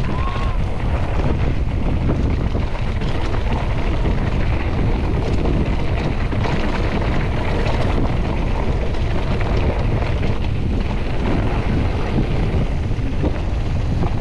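Wind rushing over the microphone of a camera on a mountain bike, with a steady low rumble from the bike rolling over the trail.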